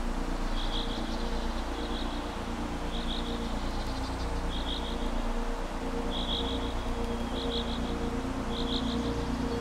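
Ambient soundscape: a steady low hum, with high chirps in quick clusters of two to four repeating about once a second, like calling frogs or insects.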